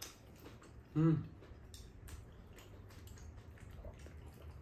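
Quiet table eating sounds: scattered light clicks of chopsticks against bowls and a pan, with chewing. A short vocal sound from one of the diners comes about a second in.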